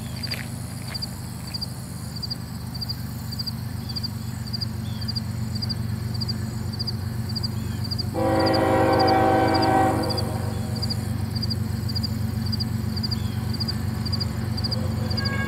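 An approaching Union Pacific GE GEVO C45ACCTE diesel locomotive's engine, a low rumble that slowly grows louder. About eight seconds in, the locomotive's air horn sounds one long blast of about two seconds. A faint high chirp repeats steadily behind it.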